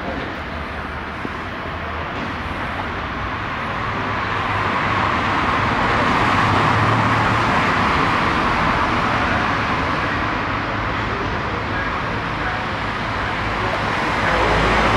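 Street traffic going by: a steady wash of tyre and engine noise that swells as vehicles pass, about six seconds in and again near the end.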